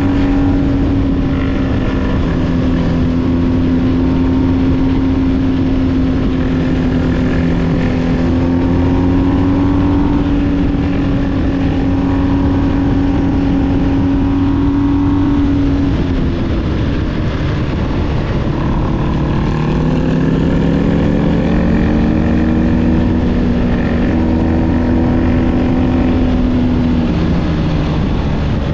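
BMW R1250GS boxer-twin engine running through an SC-Project SC1-R GT exhaust, holding a steady cruising note over wind noise. A little past halfway the note drops as the throttle closes, then it climbs again and falls away near the end.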